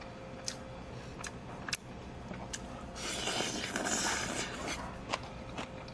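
Close-up eating sounds: a few sharp clicks of chewing and chopsticks, and about three seconds in a loud, hissy slurp of over a second as food is sucked in off the chopsticks. A faint steady hum runs underneath.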